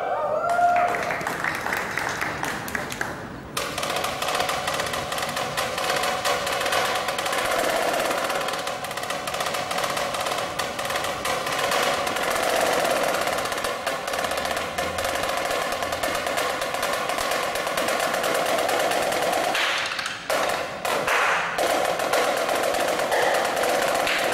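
Marching snare drum played solo with sticks: fast rolls and dense runs of crisp strokes, with short breaks a few seconds in and again near the end.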